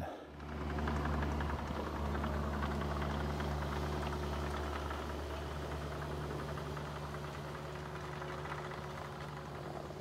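Yanmar mini excavator's diesel engine running steadily as the machine digs a trench.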